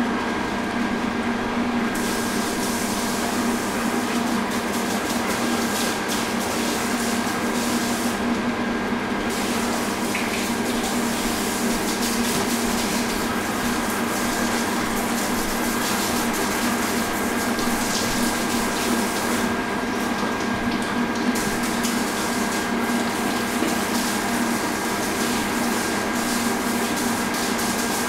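Pool water pump running steadily with water rushing, a constant low hum with a thin high whine held over it.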